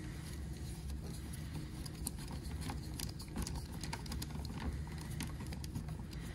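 Light, irregular clicking and ticking of a Torx T10 screwdriver turning out small screws from the plastic housing of a power folding mirror's motor mount, over a low steady hum.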